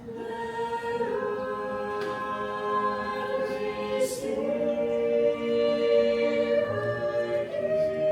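A cappella vocal ensemble singing long held chords in close harmony, with no instruments, the chord shifting a few times.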